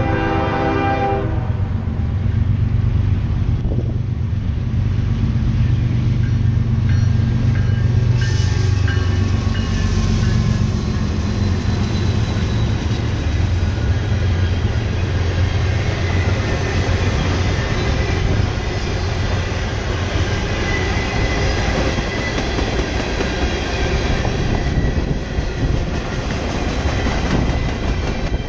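Norfolk Southern freight train passing: the diesel locomotives' horn sounds and cuts off just over a second in, then the locomotives' engines rumble by, giving way to the steady rolling of freight cars on the rails.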